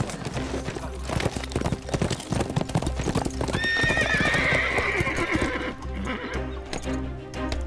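Horse hooves clopping in a dense, irregular clatter, with a horse whinnying in a wavering call for about two seconds from about three and a half seconds in.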